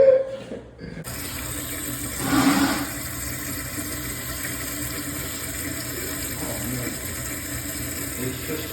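Water running steadily into a freshly reinstalled toilet, starting suddenly about a second in, with a brief louder surge shortly after.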